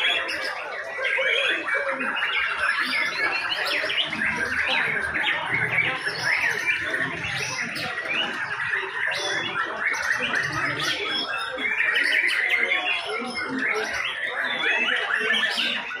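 Several white-rumped shamas (murai batu) singing at once: a dense, unbroken chorus of rapid chirps and whistled phrases.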